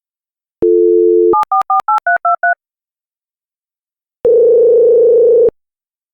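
Telephone sound effects: a steady dial tone, then seven quick touch-tone keypad beeps as a number is dialed, then one longer ringing tone on the line.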